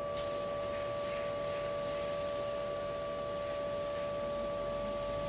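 CNC laser cutter cutting sheet steel: a steady two-note hum with a hiss over it.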